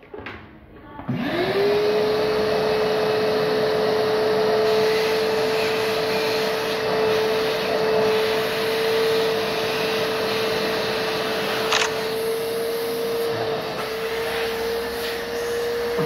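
An electric motor spins up about a second in and then runs at a steady pitch with a loud rushing noise, with one sharp click near the end.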